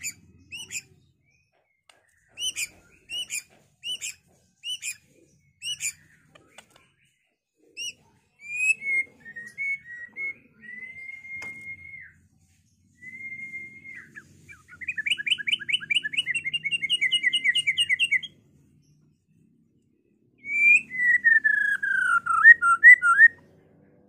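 White-rumped shama in full song: a string of short, sharp repeated notes about every second, then clear gliding and level whistles, a fast rattling trill of about ten notes a second, and a long falling whistle that breaks into quick notes near the end.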